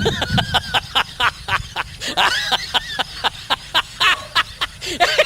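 A person laughing in a quick run of short, high-pitched bursts, about four or five a second.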